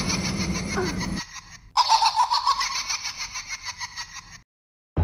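A high-pitched, shaky voice in quick rhythmic pulses, laughter-like, fading as it goes. It drops away briefly about a second in, starts again nearly two seconds in, and cuts off abruptly to silence just before the end.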